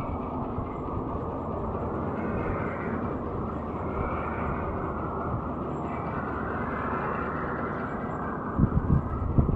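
Steady low rumble of a running vehicle engine, with a few low buffets near the end.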